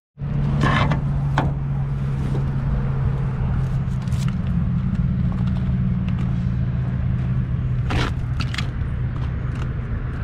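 A vehicle or machine engine idling steadily, with a few short knocks and scrapes over it.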